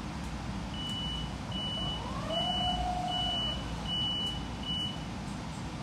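Bombardier M7A electric multiple-unit car running, with a low rumble throughout and a propulsion whine that rises, holds steady for about a second and fades. Over it a high electronic beep sounds six times in a row, about one every 0.8 s.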